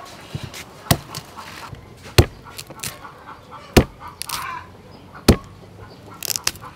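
Kitchen knife chopping through a corn cob onto a wooden cutting board: four sharp chops about a second and a half apart, with lighter knife taps between them and a quick run of small knocks near the end.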